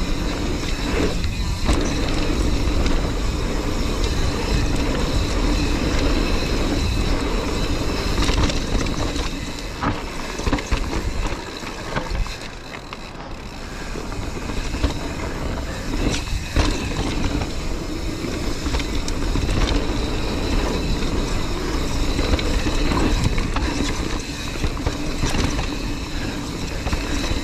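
Mountain bike ridden down a dirt trail: steady tyre noise and the bike rattling over rough ground, with a short lull about twelve seconds in.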